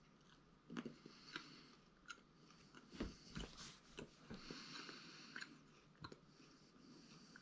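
A person chewing a Carolina Reaper chilli with the mouth closed: faint, irregular wet clicks and smacks of chewing.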